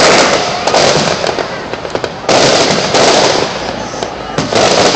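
Aerial fireworks bursting in quick succession: loud booms about every second, each followed by a noisy tail.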